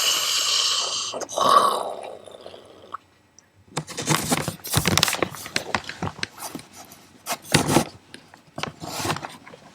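A long, hard sniff through a congested runny nose, then a short snort about a second and a half in. After that comes a run of scraping and rustling noises.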